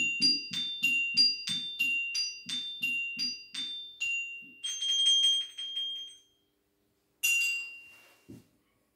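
Shards of a broken flower vase struck with sticks in a quick rhythm, about three strikes a second, each giving a bright ringing pitched tone with a dull knock under it, the pitches alternating. The run stops about six seconds in after a longer held ring, and one last ringing strike follows near seven seconds.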